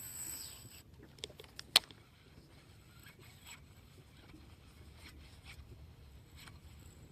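Quiet handling noise with one sharp click just under two seconds in, then faint scattered ticks and rustles.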